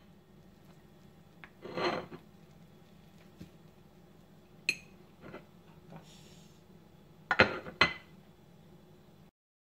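Table knife cutting a piece of syrup-soaked semolina cake on a ceramic plate: a short scrape of the blade about two seconds in, then scattered clinks of knife on plate, with two sharp clinks near the end.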